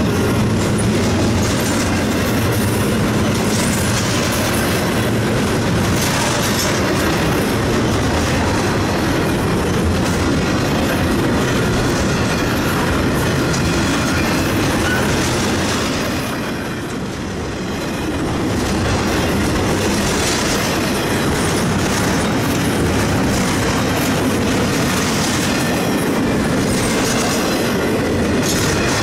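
Double-stack intermodal freight train rolling past at speed: a steady, loud rumble and rattle of wheels and cars on the rails, easing briefly a little past halfway through.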